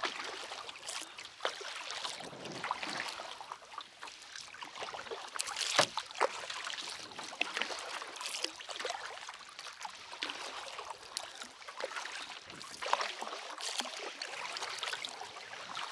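Water trickling and splashing around a small boat being paddled along, with scattered light clicks and a few sharper knocks.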